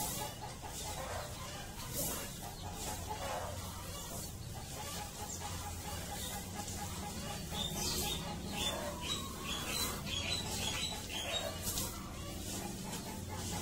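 Chickens making soft rapid clucking notes, then a run of quick high chirps about two thirds of the way in, over a steady low hum.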